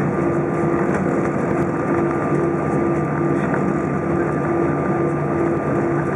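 Cabin noise of an Airbus A320 taxiing after landing: a steady rush of engine and rolling noise, with a low hum pulsing on and off a little under once a second and a thin steady tone above it.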